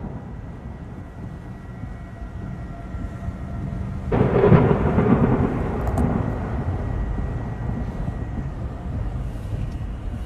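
Thunderstorm: a steady rush of storm noise, then a loud rumble of thunder breaking in about four seconds in and slowly fading.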